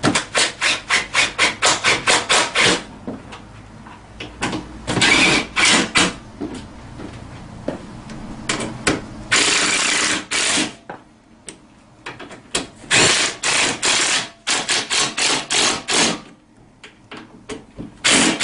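Socket ratchet clicking as the Allen bolts holding a scooter's rear rack are tightened down: runs of quick, even clicks, about five a second, broken by a few longer spells of rapid ratcheting.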